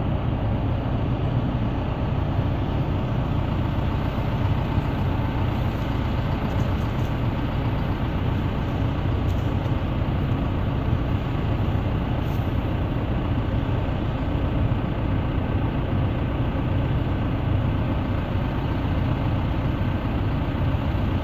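Backhoe's diesel engine idling steadily, a low, even engine drone that holds without revving.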